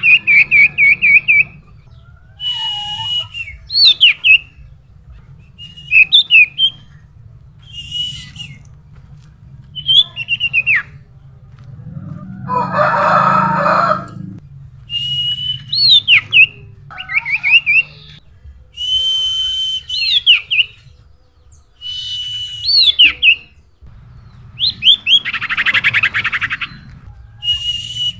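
Common iora (sirtu) calling over and over: a held whistled note that breaks into a quick up-and-down flourish, repeated about every two seconds. Two longer, harsher rattling chatters come about twelve seconds in and near the end.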